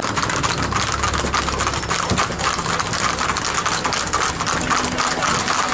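Hooves of several horses and ponies clip-clopping on a paved road: a dense, irregular stream of sharp clicks with no clear beat.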